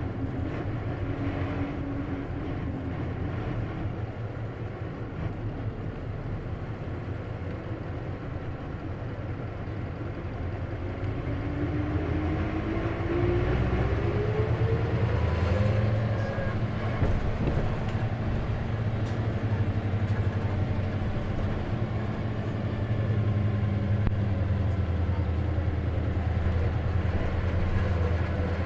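Isuzu KC-LV380N city bus heard from inside while driving, its diesel engine droning low. About halfway through, a whine rises in pitch as the bus pulls away and speeds up, then the drone settles, louder and steady. This bus has an odd mechanical noise, which the uploader thinks may be a symptom of its manual gearbox.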